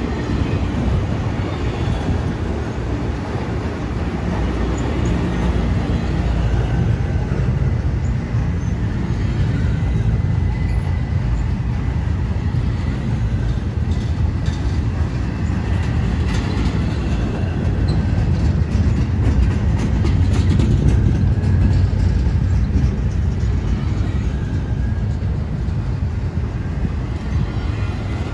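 CSX freight train's autorack and double-stack container cars rolling past: a steady low rumble of steel wheels on rail, with a few faint clicks in the middle.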